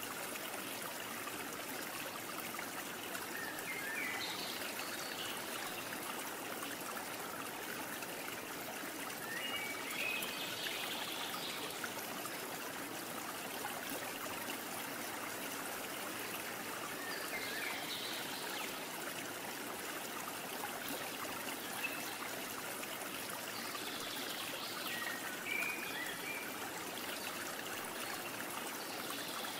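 Steady hiss-like rushing noise, with faint short high chirps every few seconds.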